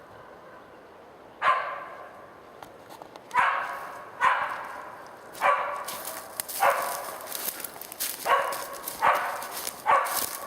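A search-and-rescue dog barking, eight single barks at uneven intervals starting about a second and a half in: a bark alert typical of a search dog that has found the hidden person.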